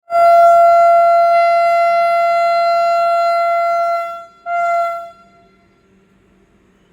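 Vande Bharat Express horn giving its departure honk: one long steady single-note blast of about four seconds, then a short second blast that trails off.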